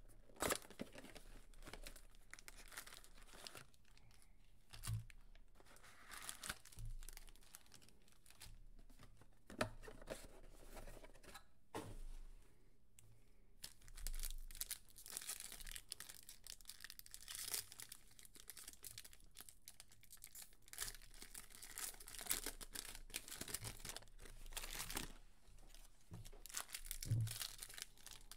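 Foil packs of 2021 Panini Prizm UFC trading cards, with the hobby box's wrapping, being torn open and crinkled by hand, mixed with short taps of packs and cards handled on the table. The tearing and crinkling grows busier about halfway through.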